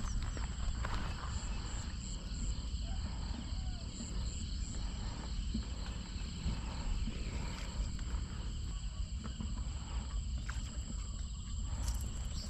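Insects calling in steady high tones, one of them pulsing briefly a few times, over a steady low rumble.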